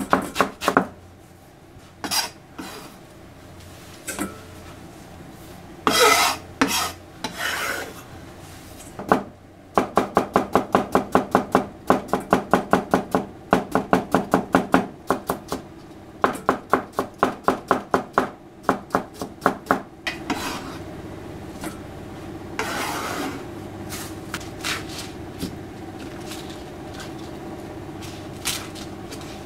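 Kitchen knife chopping vegetables on a plastic cutting board, shredding cabbage and slicing cucumber: runs of quick, even strokes about four a second, with a few louder rustles in between. Near the end come quieter rustling and handling of lettuce leaves, with only the odd knock of the blade.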